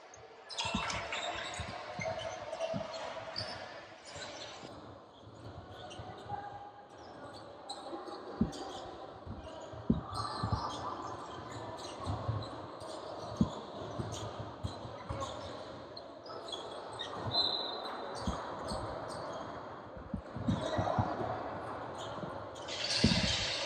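A basketball bouncing on a hardwood court as play goes on, with irregular thuds, over voices of players and spectators.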